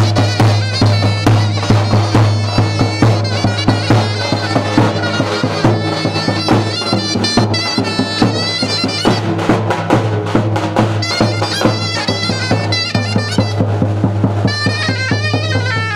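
Zurna playing a lively, ornamented folk melody with a drum beating time. A steady low hum runs underneath.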